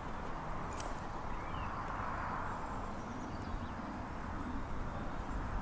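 Steady outdoor background noise with a low rumble, and a couple of faint bird chirps.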